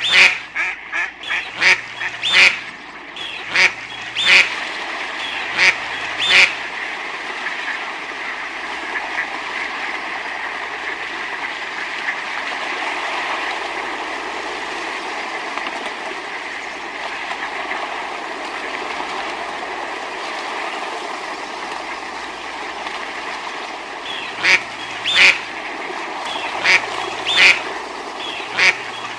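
Ducks quacking in quick runs of short calls for the first several seconds, then again in the last few seconds, over a steady even background noise.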